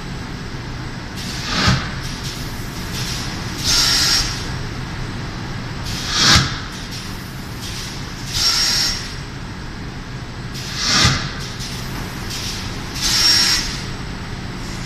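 Paper pulp egg tray forming machine running with a steady mechanical hum, working in a cycle of about four and a half seconds: a short hiss of air with a thin high whistle, then about two seconds later a sharp knock with a hiss, three times each.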